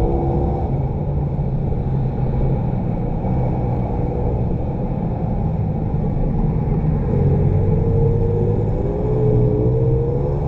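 Small pit bike being ridden hard, its motor running with the pitch rising and falling as the rider works the throttle through the corners. It sounds dull, with little above the low and middle range.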